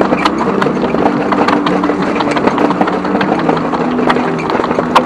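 Mountain bike rattling over a rough path: irregular clatter and knocks from the frame and parts, over a steady rushing noise of riding.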